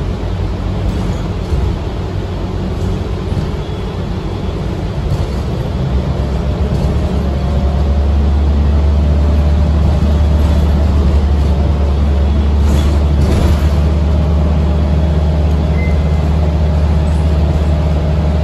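A city bus under way, heard from inside the cabin: engine and road noise. The engine's deep drone grows louder about eight seconds in and then holds steady.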